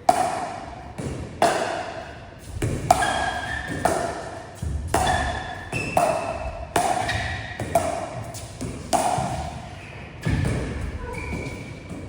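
Pickleball paddles hitting a plastic ball back and forth in a steady rally: about ten sharp pocks, roughly one a second, each with a short ring.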